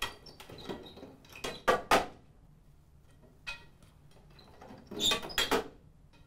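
Fluorescent lamp tubes being removed from a light fixture: sharp knocks and clatter of handling, in a cluster about one and a half seconds in and another about five seconds in.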